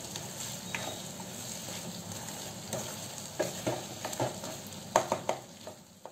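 Diced potato, peas, capsicum and onion sizzling in a kadhai while a wooden spoon stirs them. A few sharp scrapes and knocks of the spoon against the pan come in the second half, and the sound drops away just at the end.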